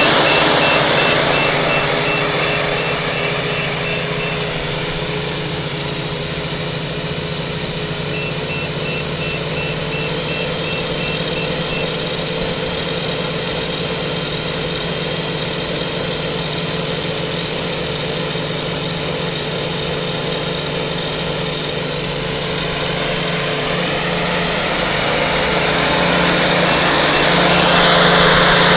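Y6 tricopter's six motors and propellers running steadily on the ground without lifting off, a constant whirring hum. It is louder near the start and again near the end.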